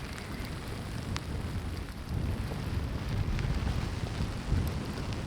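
Strong wind buffeting the microphone: a low rumble that swells and falls in gusts, under a steady hiss, with a few faint ticks.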